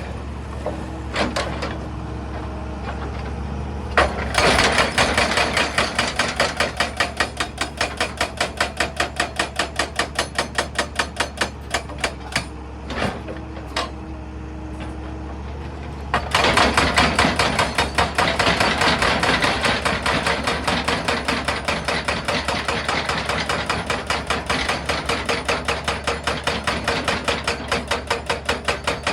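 Excavator-mounted hydraulic rock breaker hammering on stone in rapid, even blows, about four a second, in two long bouts with a short pause between them. The excavator's diesel engine runs steadily underneath.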